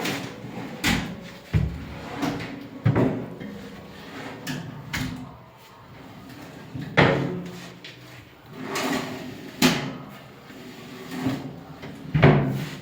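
Kitchen cabinet drawers being slid open and shut, with a sharp knock as each one closes, several times over the stretch.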